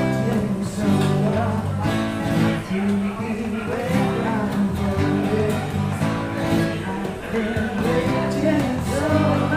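Live acoustic band: strummed acoustic guitar and voices singing a song together.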